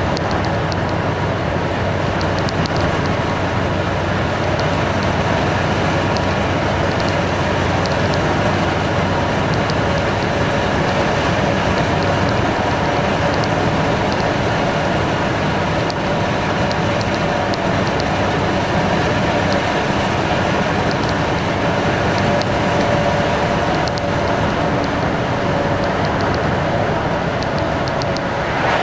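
Motorcycle engine running steadily at cruising speed, mixed with constant wind and road noise on the onboard microphone.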